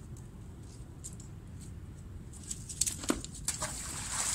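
Several sharp clicks about halfway through, then a short rushing, rustling burst near the end, over a low steady rumble. These are handling noises from magnet-fishing gear, the magnet and rope being worked at the water's edge.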